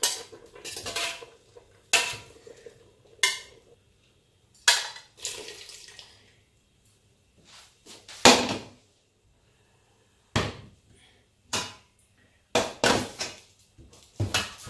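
Stainless steel kitchenware clinking and knocking: a metal slotted spoon against a pressure cooker pot and plate, then stainless steel pots being handled and set down. It comes as a string of separate clanks with short quiet gaps, the loudest a little after eight seconds in.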